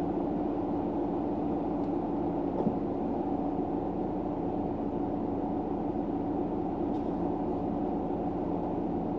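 Steady low hum inside a car cabin, with a faint click about two and a half seconds in.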